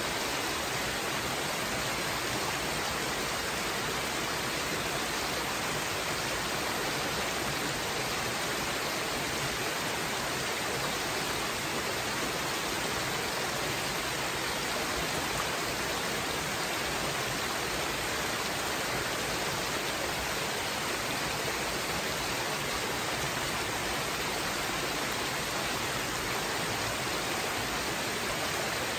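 A small woodland brook splashing down over mossy rocks in little cascades: a steady, even rush of running water.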